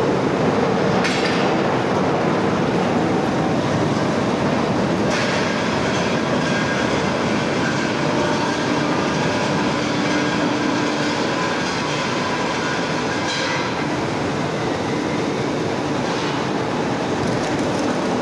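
Heavy industrial machinery running steadily: a dense, continuous mechanical noise with a few faint steady tones and occasional faint clanks.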